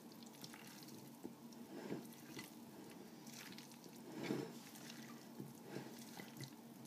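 Silicone spatula folding mayonnaise-coated potato chunks in a glass bowl: faint wet squelches and scrapes in a series of soft, irregular strokes, the loudest about four seconds in.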